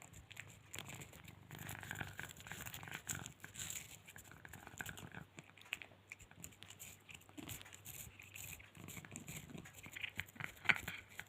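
Domestic cat purring as she licks a chicken-flavour lick treat, with small irregular wet clicks from the licking and one sharper click near the end.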